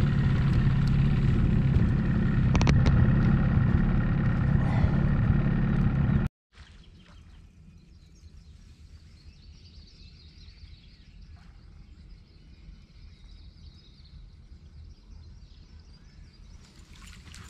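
Bass boat's outboard motor running steadily for about six seconds, then stopping abruptly. After that, quiet lakeside ambience with faint scattered bird chirps.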